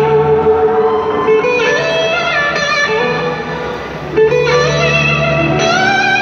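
Live blues-rock band playing, electric guitar to the fore over the full band, with long held notes that bend and slide in pitch.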